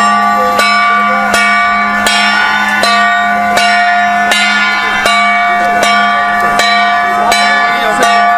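Background music built on a bell struck evenly, about once every three-quarters of a second. Each strike rings on over a steady low hum.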